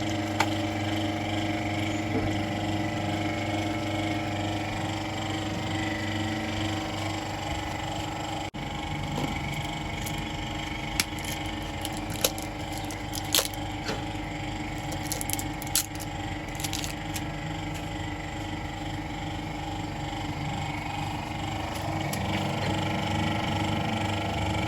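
Car engine running steadily at idle, with a few sharp clicks and knocks near the middle.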